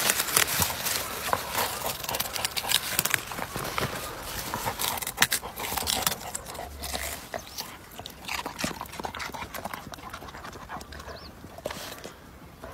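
A dog digging in loose garden soil among leafy plants to work a radish out of the ground. Dirt scrapes and crumbles in a fast, irregular patter of small clicks, which thins out near the end.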